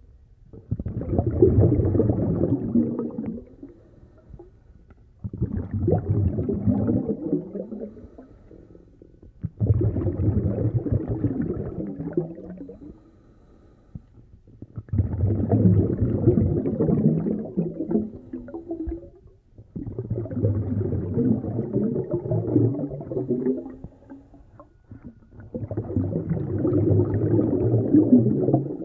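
River waves washing in against a stone bank, surging and draining in repeated swells every four to five seconds.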